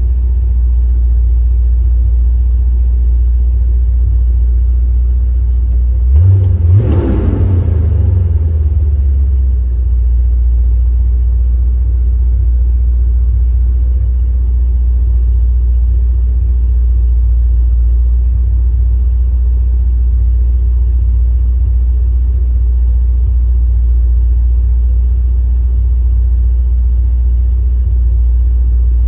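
1976 Chevrolet Corvette's 350 small-block V8 idling steadily, with one brief rev about six seconds in.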